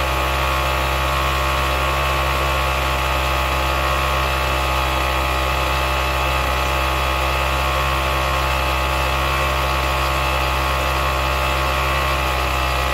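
Restored Auto Union GG 400 generator's engine running steadily at constant speed, smooth and even with no misses or speed changes.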